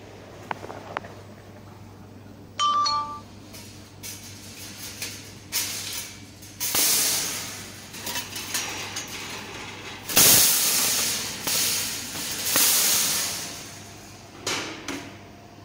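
Thin 1 mm laser-cut stainless steel sheet and parts being handled by hand: a couple of light clicks, a short ringing metal clink about two and a half seconds in, then a long run of irregular scraping, wobbling and rattling of the thin metal, loudest about ten seconds in. A steady low hum from the machine runs underneath.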